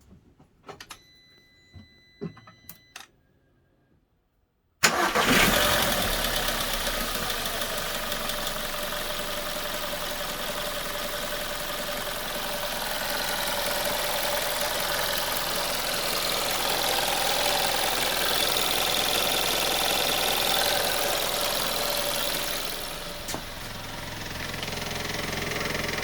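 A few clicks and short beeps, then about five seconds in the VW Golf 1.4 TSI engine starts and settles into a steady idle. The idle carries the strange noise that the owner hears near the right wheel, underneath the car and in the cabin. The sound dips briefly near the end.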